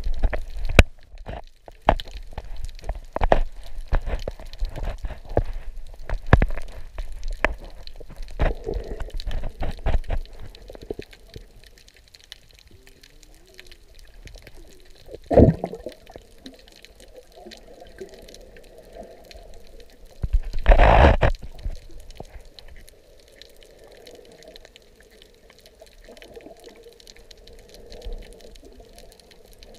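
Muffled underwater sound of a snorkeler's action camera in its waterproof housing: water sloshing and knocking on the case, with many irregular clicks through the first third. After that it goes quieter, broken by a brief loud rush of water noise about halfway and a longer, louder one about two-thirds through.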